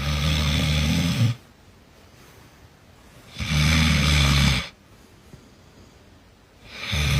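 Snoring: three loud snores about three and a half seconds apart, each lasting a little over a second, the third starting near the end.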